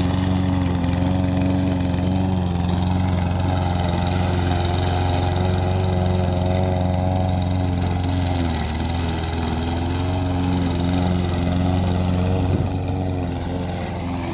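Briggs & Stratton overhead-valve single-cylinder engine on a walk-behind lawnmower running steadily at speed. Its note sags briefly a little past halfway and again near the end.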